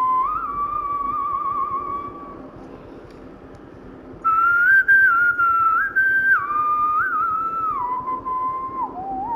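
A person whistling a Khmer song melody: one clear tone stepping from note to note, with vibrato on the held notes. The tune breaks off for about two seconds and then comes back louder.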